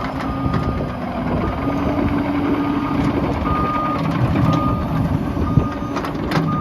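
Caterpillar 308D CR excavator travelling on its tracks, its travel alarm beeping about once a second over the steady running of the diesel engine and hydraulics, with a few sharp clanks near the end.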